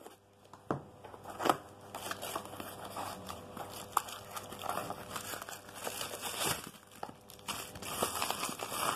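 A small cardboard box being opened by hand and a bubble-wrap packet pulled out of it: irregular crinkling and rustling of plastic, with sharp snaps and clicks of the cardboard flaps.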